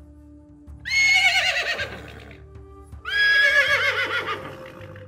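A horse whinnying twice, each a high, quavering call of about a second and a half that drops away in pitch, over soft background music.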